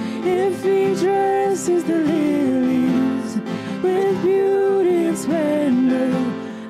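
A woman singing a slow worship song live to acoustic guitar, holding long notes that slide between pitches.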